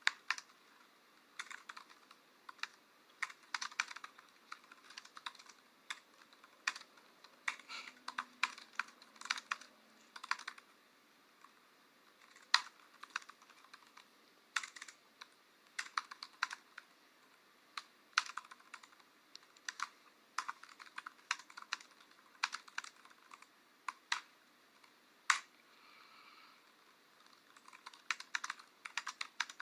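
Typing on a keyboard: quick, irregular runs of clicky keystrokes broken by short pauses, with a few louder single key presses.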